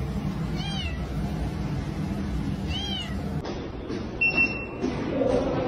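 A cat meowing twice, each call rising and then falling in pitch, about two seconds apart, over a steady low hum. Near four seconds in, a short steady beep.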